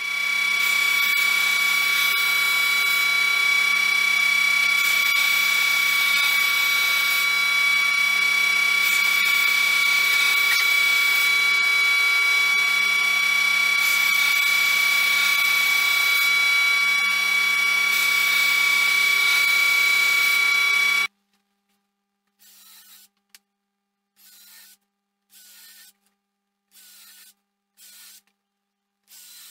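Combined planer-thicknesser running steadily with a high whine, stopping abruptly about 21 seconds in. Then a cordless drill-driver runs in a string of short bursts, driving screws into wood.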